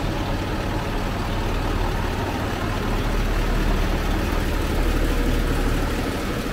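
A heavy diesel truck engine idling steadily, giving an even low rumble.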